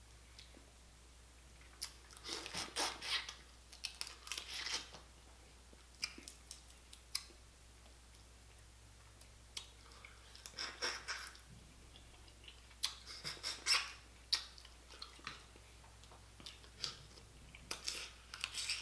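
Close-miked eating of boiled blue crab: shells cracked by hand and meat sucked and chewed. It comes as several bursts of crunching, cracking and wet smacking with quiet gaps between.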